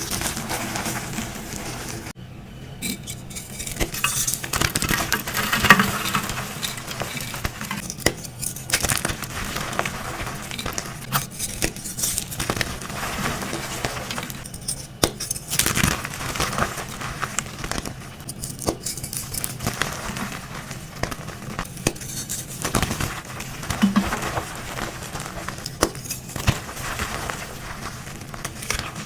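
Dyed gym chalk chunks and blocks being crushed, crunching and crackling as they crumble, in repeated stretches broken by short pauses.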